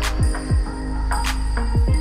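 Background music: a track with a beat of deep kick-drum hits and sharp snare or clap hits over steady backing tones.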